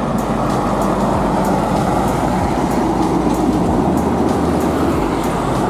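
Container-hauling tractor-trailer truck driving past close by, its engine and tyre noise steady, with background music ticking out a regular beat under it.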